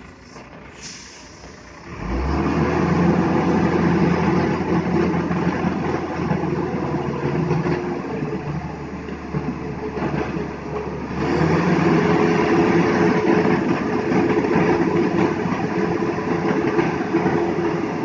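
Hino 500 concrete mixer truck's diesel engine revved up and held high while the truck stands still, as when driving the drum to unload concrete. It rises suddenly about two seconds in, dips briefly around ten seconds, comes back up, and eases off near the end.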